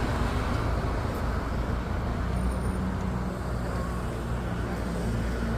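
Steady low hum of a running engine under a noisy wash of street traffic.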